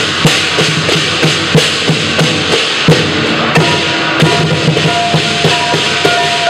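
Lion dance percussion: a large drum beating steadily about three times a second under continuous crashing cymbals. A steady ringing tone joins about halfway through.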